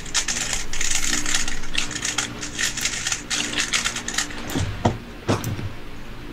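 Plastic speedcubes being turned rapidly while they are scrambled, a fast continuous clicking and clacking. It thins out after about four and a half seconds, and a couple of heavier knocks follow, as of a cube set down on the mat.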